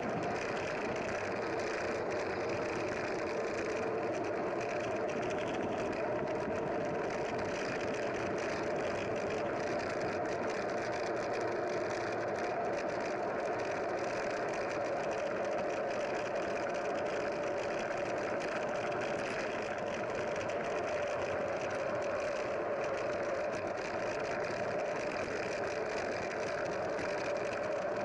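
Steady, unbroken drone of a running engine.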